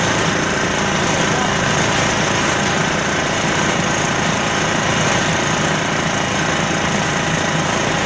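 Small diesel engine of a wheeled concrete mixer running steadily, turning the tilted drum as it pours out its mix.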